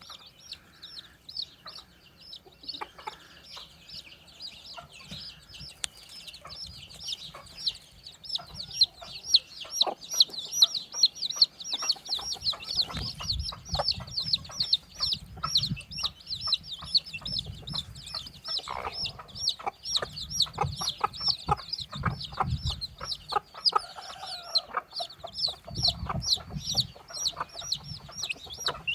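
Chicks peeping in a steady run of rapid, high, falling chirps, several a second. Lower clucking and soft knocks join about halfway through.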